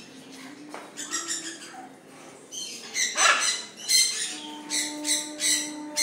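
Pet parrots squawking: a string of short, harsh calls that grow louder after the first few seconds.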